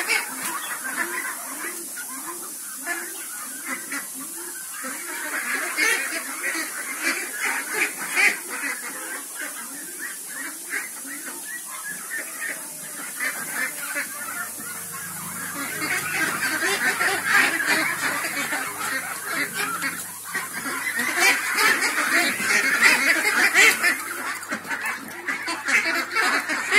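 A crowded flock of domestic ducks calling and quacking, many voices overlapping, louder in the second half. A low steady hum comes in about halfway through.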